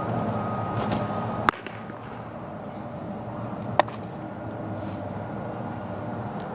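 A pitched baseball popping sharply into a catcher's mitt about a second and a half in, then a lighter smack of the returned ball landing in the pitcher's glove a couple of seconds later, over a steady mechanical hum.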